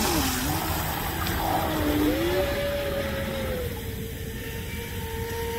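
Fast electric RC speedboat running on the water, its motor whining in a pitch that dips near the start, rises sharply about two seconds in, then holds steady as the boat runs on, over a steady hiss of spray and water.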